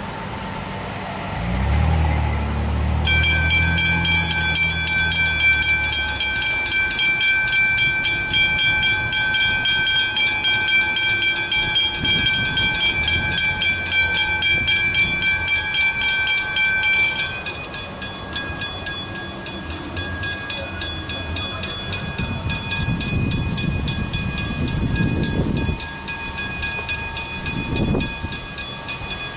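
Two Westinghouse Hybrid level-crossing bells start ringing rapidly about three seconds in, as the boom gates come down. About halfway through, once the booms are down, one bell cuts out and the other keeps ringing.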